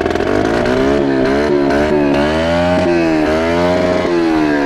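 Kawasaki KLX110 pit bike's small single-cylinder four-stroke engine running close by, revving up and easing off several times in a row.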